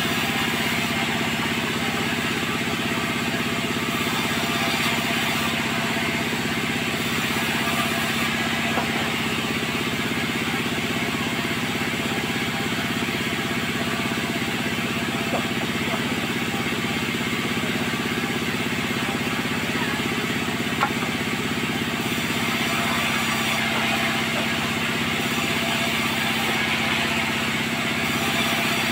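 Sawmill machinery running steadily: a constant engine-like hum with hiss above it, and a few faint knocks.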